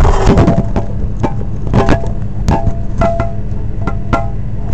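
Irregular sharp knocks and clicks of hard objects being handled and set down, some with a brief ringing note, with a short clatter at the start.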